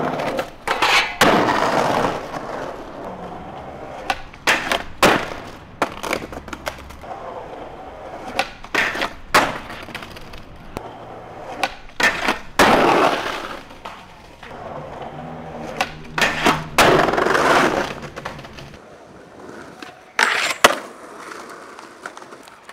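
Skateboarding at a metal handrail: wheels rolling on pavement, sharp tail pops and the board clattering and slamming on the ground, with stretches of the trucks grinding along the steel rail.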